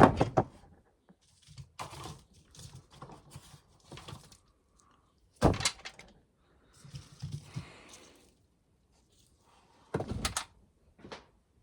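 Three hard knocks or thuds, about five seconds apart, with quieter rustling and scraping between them, from handling ears of corn and wood.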